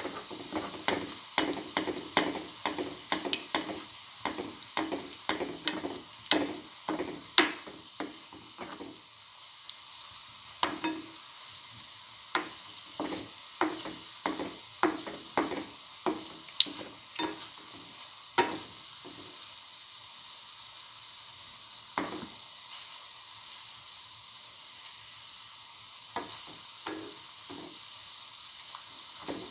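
Chickpea and potato fritters shallow-frying in hot oil: a steady sizzle with many sharp crackling pops. The pops come thick and fast for the first several seconds, then thin out to scattered ones.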